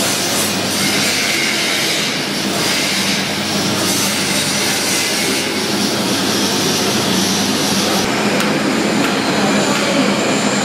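Loud, steady machine noise: a dense rushing sound with a low hum underneath, unchanging throughout.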